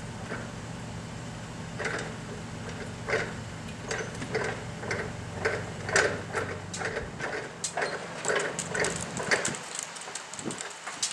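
Short knocks and clanks of hands working a forklift's forks, coming about twice a second. They sit over the low steady running of an idling engine, which stops about seven seconds in.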